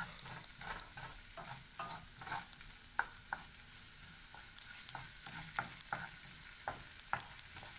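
Chopped green onions frying in oil in a non-stick frying pan, a faint sizzle under irregular scrapes and taps of a wooden spoon stirring them.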